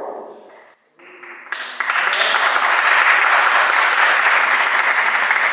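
Audience applauding: the clapping builds up over the first two seconds, then holds steady and loud.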